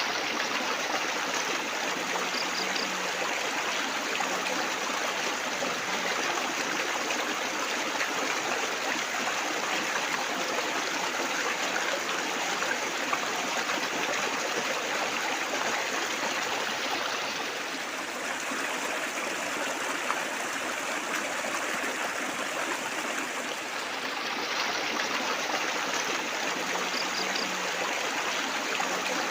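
Water trickling and splashing steadily, a small babbling flow, easing slightly for a few seconds past the middle.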